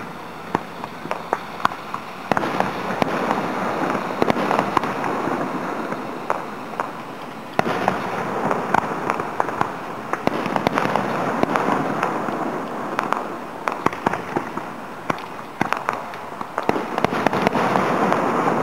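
Aerial fireworks display heard from about a quarter mile away: many sharp bangs of shells bursting, scattered irregularly, over a continuous rushing noise that swells about two seconds in, again near eight seconds, and near the end.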